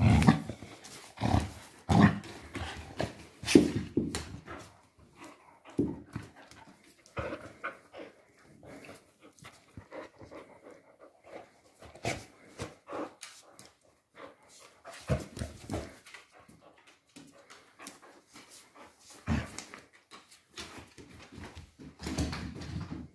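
A dog at rough play with a toy: scuffling and dog noises in irregular bursts, densest and loudest in the first few seconds, then coming and going.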